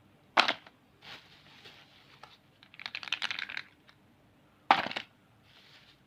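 Packaged items being handled and set down: two sharp clacks, about half a second and nearly five seconds in, with a quick crackle of crinkling wrapper between them and soft rustling.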